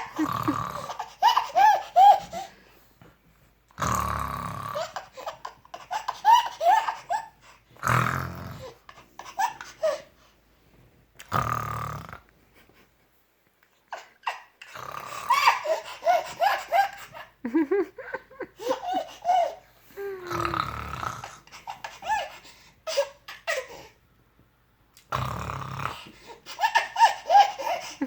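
A man snoring loudly in several separate rasping bursts a few seconds apart, with a young child's giggling laughter in quick runs of short notes after them.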